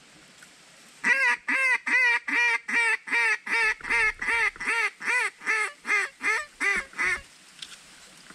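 Hunter's duck call blown in a long run of about twenty loud quacks, roughly three a second, starting about a second in and stopping about seven seconds in. It is a hail call to reach a duck flying far off.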